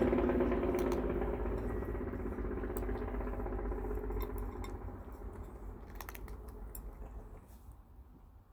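An engine's low drone fading away over several seconds. Scattered light clicks of a cat eating dry kibble from a bowl.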